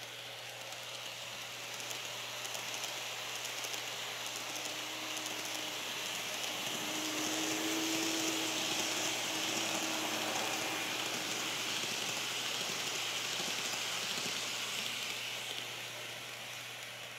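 Two N-gauge model trains, a KATO 209 series 500 and a TOMIX E231 series 800, running on model track: a steady hissing rumble of wheels on rail that grows louder as they pass close, loudest about halfway through, then fades. A faint motor whine rises with it as they pass.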